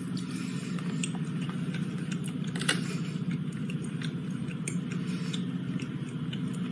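Closed-mouth chewing of a gummy candy: faint, soft clicks and crinkles from the mouth and the plastic candy bag, the clearest about a third of the way in, over a steady low hum.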